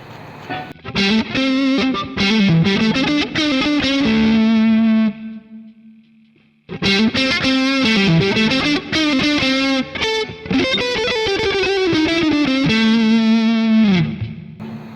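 Distorted electric guitar, a Fender Stratocaster through a Boss Katana 50 MkII amp recorded directly over USB, playing two lead phrases, each ending on a held note, the second bending down at the end; the variation button adds more gain, like a booster.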